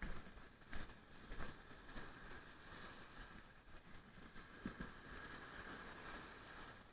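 Faint wash of surf, swelling into a steady hiss from about three seconds in, with a few soft knocks in the first two seconds.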